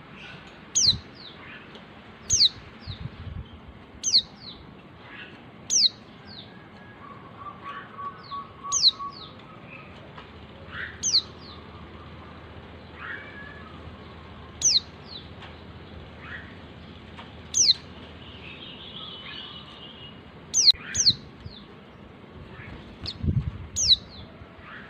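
Female white-eye (pleci, Zosterops) calling to attract a male: short, high notes that fall sharply in pitch, repeated about every one and a half to two seconds, some given in quick pairs, over fainter chirps of other birds.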